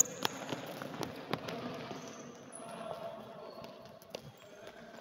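Futsal balls being dribbled and tapped along a wooden court floor, giving irregular thuds and taps. There are several in the first second and a half and fewer after.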